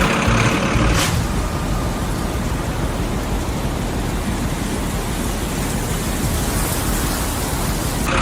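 A vehicle running: a steady rushing noise over a low hum, which comes in fuller about a second in and holds evenly.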